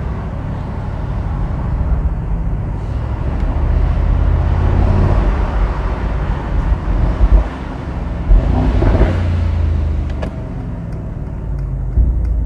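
Mercedes-AMG SL63's twin-turbo V8 engine and exhaust running while driving, with road noise. The sound swells to its loudest about eight to nine seconds in, then settles.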